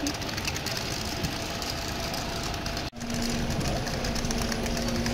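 Road traffic on a busy city street, with bus and car engines running. The sound breaks off for a moment about three seconds in, then a steady low engine hum carries on.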